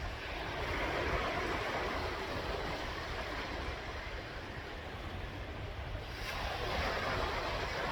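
Sea waves washing onto the shore, the surf swelling twice, about a second in and again near the end, over a steady low rumble.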